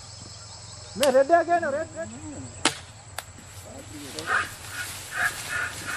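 Men shouting and calling out in the scrub while driving a wild elephant, with two sharp cracks about half a second apart in the middle.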